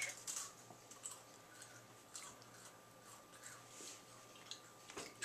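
Faint eating sounds: quiet chewing with a few light clicks of spoons against ceramic bowls, over a faint steady hum.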